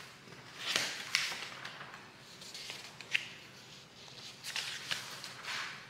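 Rustling handling noise in several short swishes, with a few light sharp clicks.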